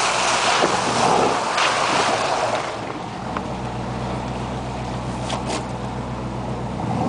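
Irok mud-terrain tyres of a GMC 4x4 churning through wet snow and slush with a loud rushing spray, heard from beside the wheel. About three seconds in this gives way to the truck's engine as a steady low hum from inside the cab, with a few light clicks.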